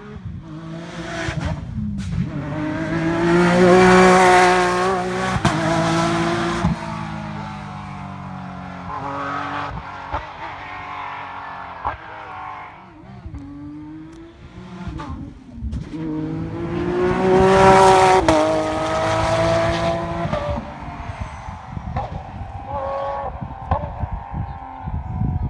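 Rally cars' turbocharged 1.6-litre four-cylinder engines revving and shifting up and down through the gears as they pass. The sound swells to a loud peak about four seconds in and again at about eighteen seconds.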